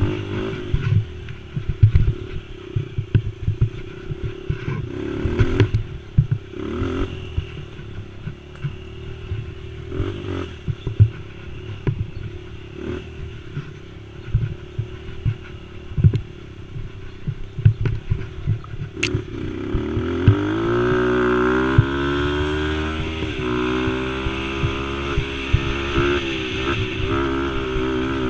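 A youth racing quad's engine running at changing throttle over a rough trail, with frequent knocks and rattles from the machine bouncing. About two-thirds of the way in, the revs climb and then hold higher and steadier as it speeds up.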